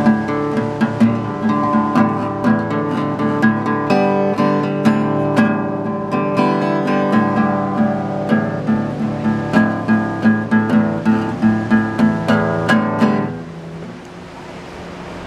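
Acoustic guitar strummed and picked in a steady rhythm, stopping about thirteen seconds in and leaving a fainter even background noise.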